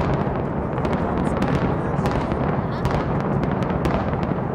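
Dense, rapid crackling and popping of fireworks and demolition explosive charges over a continuous rumble, from the combined pyrotechnic display and implosion of a 32-story hotel tower.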